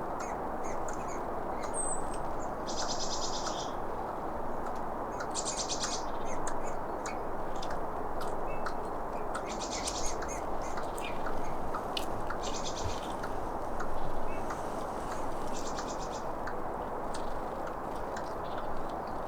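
A squirrel clicking: rapid high-pitched rattles of clicks about a second long, every two to four seconds, with single clicks in between, over a steady low background hiss.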